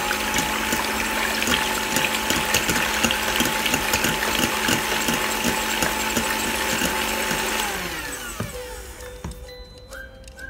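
Electric hand mixer running at a steady speed, its beaters whipping egg whites in a stainless steel bowl until foamy, with a steady motor whine and a fast rhythmic ticking. About eight seconds in, the motor winds down and stops.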